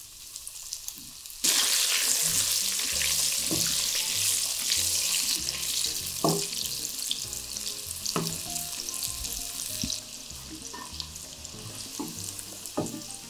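Coated chicken pieces deep-frying in hot oil in a wok: a crackling sizzle that jumps up sharply about a second and a half in and eases off for the last few seconds. A few light knocks of a wooden spatula against the pan come through the sizzle.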